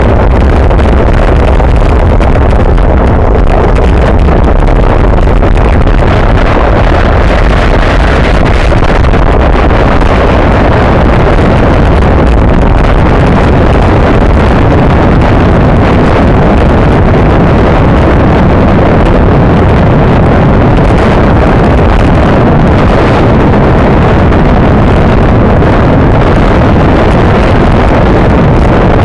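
Wind buffeting the microphone of a camera mounted on a road bike ridden at race speed. It makes a loud, steady rushing noise, heaviest in the lows, mixed with tyre hum on rough asphalt.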